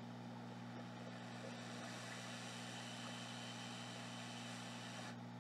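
Faint steady hum and fan hiss from electronics repair bench equipment. A brighter hiss of air comes in about a second and a half in and stops abruptly near the end.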